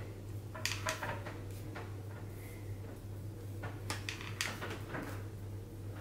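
Light clicks and rustles of a flat iron being clamped and drawn through a section of hair, scattered irregularly over a steady low hum.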